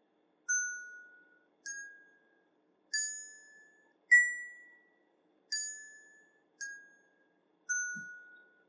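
Short chime-like notes from a JQ6500 MP3 module's small speaker, each one set off by a touch on a fruit wired to an ESP32 touch sensor. Seven notes come about a second apart, each fading out: four climb a whole tone at a time, then three step back down.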